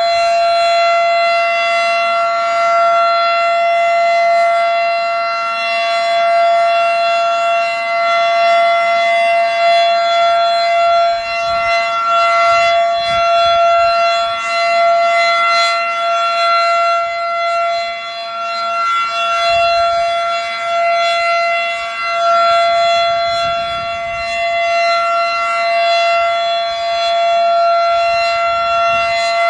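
Federal Sign & Signal Model 7 outdoor warning siren sounding a steady full-alert tone: one held pitch with a stack of overtones, its loudness swelling and dipping slightly.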